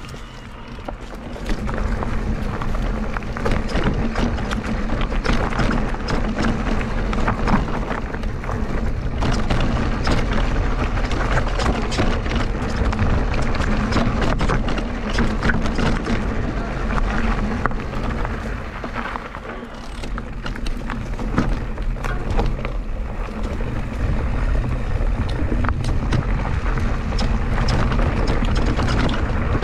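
Electric mountain bike ridden along a rough dirt trail: a steady rush of tyre and trail noise with dense rattling and sharp knocks from the bike over rocks and roots.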